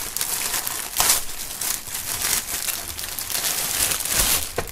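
Thin clear plastic film crinkling and crackling in irregular flurries as it is pulled by hand off a folded fabric garment.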